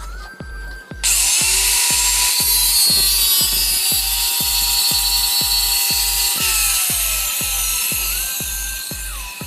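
Background music with a steady beat. Over it, a power drill runs loudly for about five seconds, starting about a second in and winding down.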